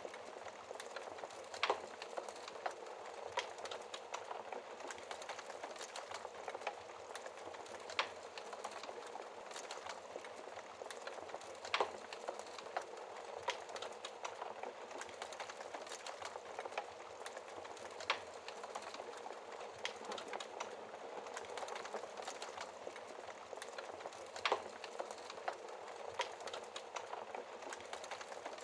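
Wood fire burning with a steady crackling hiss, broken by frequent small crackles and a few sharper pops as the logs snap.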